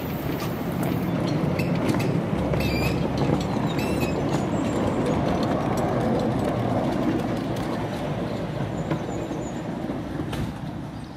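A 10¼-inch gauge steam locomotive built by Exmoor Steam Railway pulling away with its train: hissing steam and wagons rolling on the rails with some clicks, steady for several seconds and then fading as the train draws off.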